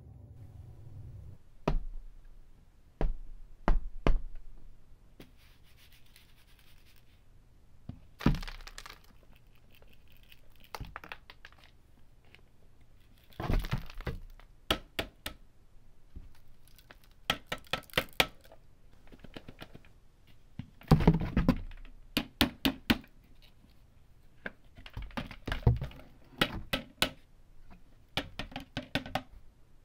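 Emptying the clear plastic dust bin of a Bissell CleanView bagless vacuum into a cardboard box, with the vacuum switched off: the bin clicks and knocks as it is unlatched and opened, and packed dust and hair tear loose and drop into the box. Irregular sharp clicks and knocks, some in quick runs, alternate with short rustling, crumpling stretches as the clumps are pulled out by hand.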